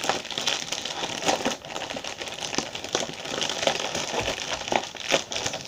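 Plastic bags crinkling and rustling in the hands as an air-filled plastic bag is squeezed into another plastic bag, with irregular crackles throughout.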